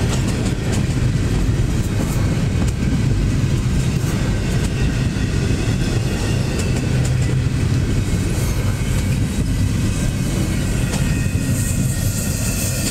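Empty double-stack intermodal well cars of a freight train rolling past: a loud, steady rumble of steel wheels on rail with scattered clicks.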